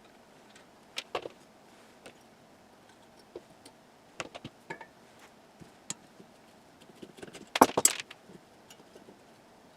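Small metal and hard parts of an old speaker being handled on a workbench: scattered clicks and taps, then a short burst of clinking and rattling a little before the end.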